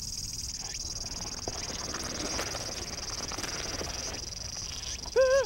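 Cicadas droning steadily in a high, finely pulsing chorus. A loud wavering cry breaks in near the end.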